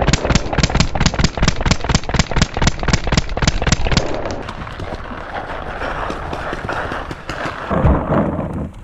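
EMF100 paintball marker firing a rapid string of shots, about seven a second for roughly four seconds, then stopping. A few seconds of rougher noise follow, with only scattered shots and some low thumps.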